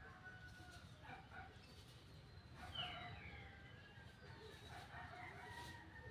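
Faint rooster crowing, with a short falling bird chirp about three seconds in.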